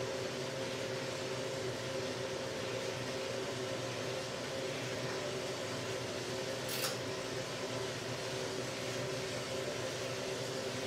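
Drum coffee roaster running, a steady motor and fan hum with several held tones, while air is blown through the freshly discharged roasted beans to cool them. A single sharp click sounds about seven seconds in.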